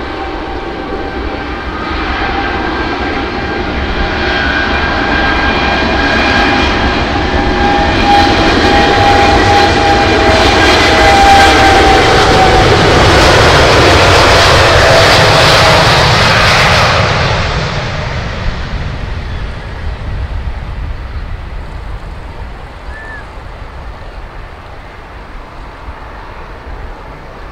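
Twin-engine jet airliner on its takeoff run at takeoff thrust: the engine roar and whining fan tones build to their loudest as it passes, with the tones sliding down in pitch. The high hiss then drops away suddenly near the two-thirds mark, and the rumble fades into the distance.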